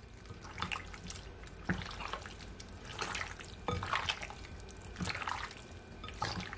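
A bare hand squishing and turning chunks of raw goat meat in a wet blended-herb seasoning paste in a glass bowl, giving irregular wet squelches about once a second.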